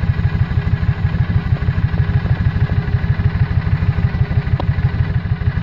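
A vehicle's engine idling steadily: a fast, even, low throb.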